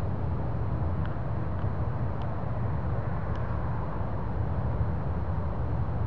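Steady low rumbling drone in the night sky, the unexplained 'sky roar', with a few faint short high chirps above it.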